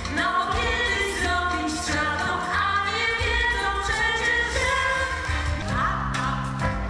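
A woman singing into a microphone over amplified instrumental backing music with a steady bass line.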